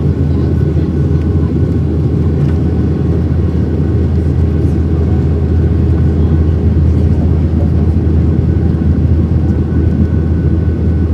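Steady low rumble of a Boeing 737-700's CFM56-7B engines and airflow, heard inside the cabin during the climb after takeoff.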